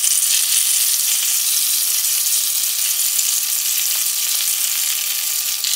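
Marinated chicken pieces sizzling steadily as they shallow-fry in hot coconut oil with curry leaves, while more pieces are laid into the pan.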